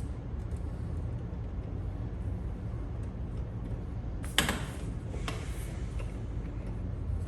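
Car door window glass and door hardware being handled: a sharp click about four seconds in and a lighter one about a second later, over a steady low rumble.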